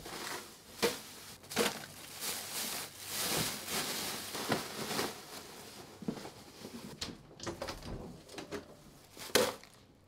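Small household objects being handled and knocked on a shelf and desk: irregular clicks and knocks, with a longer noisy stretch about three seconds in and a louder knock near the end.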